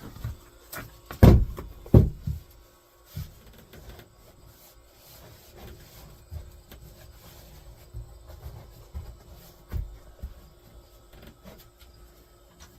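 Two heavy thumps about a second and two seconds in, followed by scattered lighter knocks and clatter of wood being set down and handled, over a faint steady hum.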